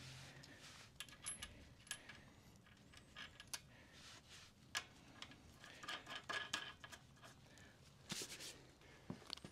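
Faint, scattered metallic clicks and clinks of small tools and parts being picked up and handled during a motorcycle front-wheel refit.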